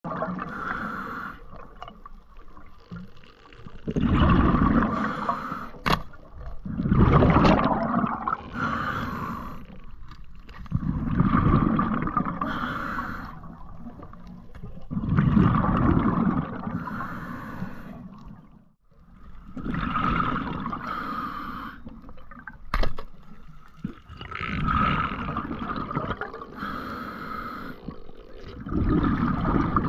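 Underwater sound of a diver: swells of bubbling and rushing water come in a regular rhythm about every four seconds, the pattern of breathing out through a regulator, with quieter gaps between. Two sharp clicks stand out, one about six seconds in and one a little after twenty seconds.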